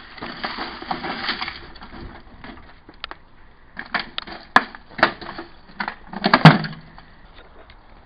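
Sledgehammer head crunching broken glass shards and knocking against the metal cavity of a smashed microwave oven. A grinding crunch at first, then a string of sharp knocks, the loudest about six and a half seconds in.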